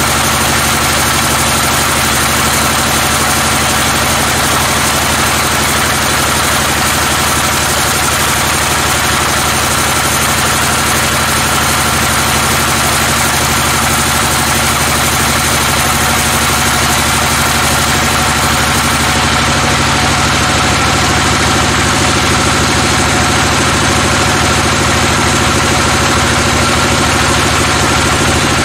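Sawmill band saw running and cutting lengthwise through a teak log: a loud, steady machine noise of the drive and blade in the wood. The sound shifts in tone about two-thirds of the way through.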